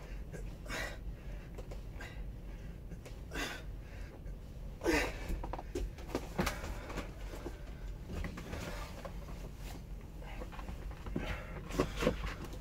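A man breathing hard through a workout, with sharp exhalations every second or two and a short effort grunt about five seconds in and again near the end. A steady low hum runs underneath.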